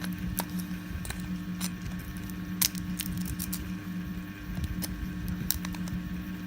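Irregular small clicks and snaps of plastic 3D-print support material being cut and pried off with hand tools, the sharpest snap about two and a half seconds in. A steady low hum runs underneath.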